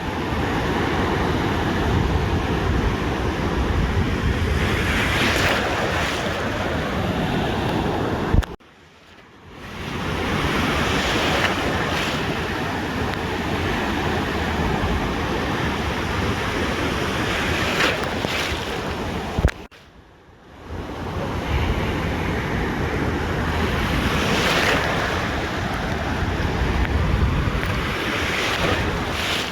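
Ocean surf breaking and washing on a beach, a steady rush with swells, and wind buffeting the microphone. The sound cuts out suddenly twice, about a third and two thirds of the way through, and fades back in over a second or so.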